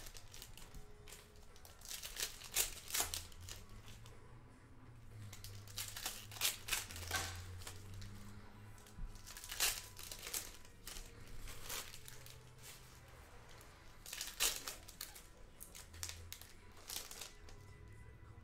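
Foil Panini Prizm football card-pack wrappers being crinkled and torn open by hand, in a string of short, irregular crackling bursts, along with cards being handled.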